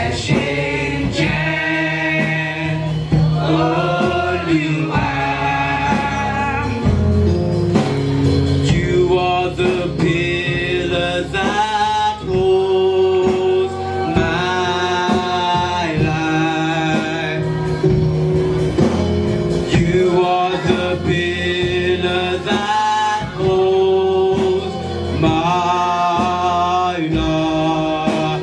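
Choir singing a gospel hymn, with male voices prominent, over steady low instrumental accompaniment.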